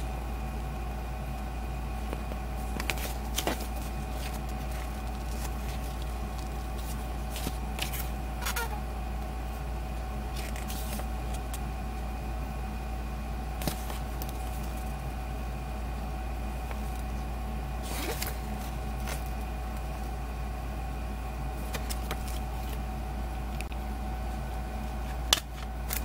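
A steady electrical hum over scattered soft handling noises as the paper pages of a CD booklet are turned. One sharp plastic click comes near the end as the disc is lifted out of its jewel case.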